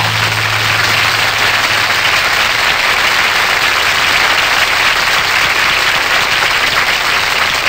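Studio audience applauding steadily as a live rock band's song ends, the band's last low note dying away about two seconds in.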